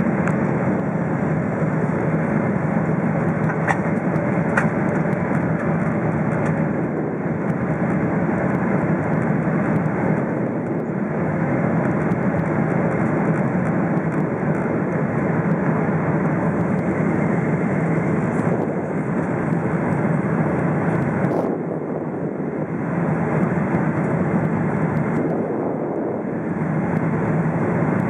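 Steady rush of engine and airflow noise inside the cabin of a Boeing 777-300ER on its landing approach, easing slightly for a moment past the middle.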